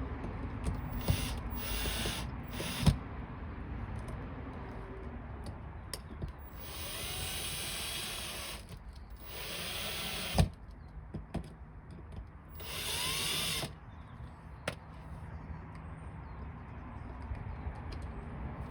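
Power drill-driver running in short spurts, several quick ones near the start and then two longer runs of a second or two each, driving the outlet's mounting screws into the electrical box. Sharp knocks come in between.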